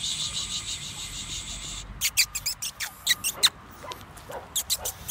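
Puppy whimpering in thin, high-pitched cries: a continuous pulsing whine for about two seconds, then a run of short squeaks, some falling in pitch.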